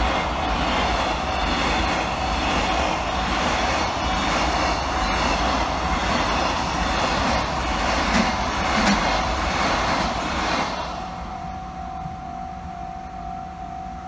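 Freight train of container wagons passing a level crossing: a loud, steady rumble of wheels on the rails, with two sharp clacks about eight seconds in. The crossing's electronic warning bell keeps sounding under it and comes out clearly when the train noise dies away about eleven seconds in.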